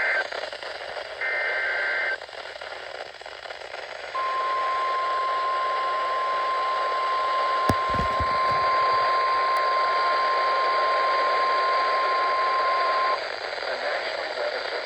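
Emergency Alert System broadcast on NOAA Weather Radio: two one-second warbling data bursts of a SAME alert header, then, about four seconds in, the single steady weather-radio warning alarm tone held for about nine seconds before it cuts off, all over steady radio static.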